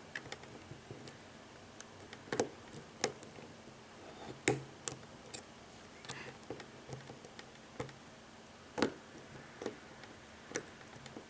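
Light, irregular metallic clicks and ticks from a lock pick and tension wrench working the wafers of a wafer lock as it is being picked.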